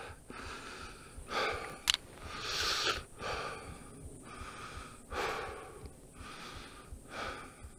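A man breathing audibly through his mouth while hiking, a puff of breath about once a second.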